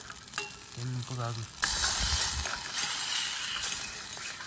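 Tomato pieces dropped into hot oil in a small camping pan on a portable butane stove, sizzling sharply from about a second and a half in while being stirred, then easing off toward the end.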